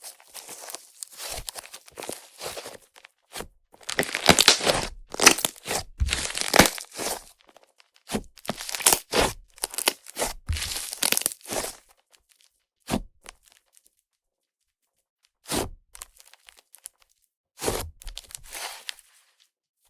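Fluffy clay-butter slime made with Yoda clay being squeezed and poked by hand, the air worked into it crackling and sizzling in dense bursts. About twelve seconds in, the bursts give way to a few separate short clicks with quiet between them.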